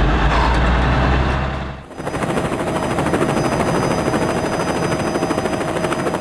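Truck engine rumbling heavily inside the cab, cut off about two seconds in by a rapid, steady rattling sound effect with a few high ringing tones over the logo card.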